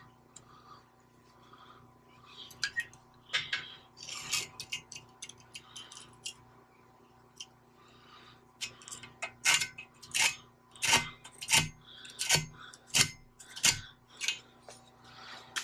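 Light metallic clicks, taps and scrapes of a steel rule and combination square being set and slid against rectangular steel tubing while an angled cut line is marked on it, with a run of sharper clicks, one or two a second, in the second half. A faint steady hum lies underneath.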